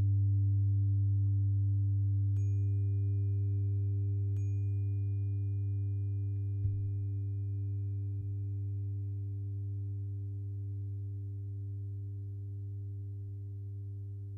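A 396 Hz tuning fork struck twice, about two seconds apart, its high clang and tone ringing on and slowly fading over steady low binaural-beat tones. A soft low thump comes about seven seconds in.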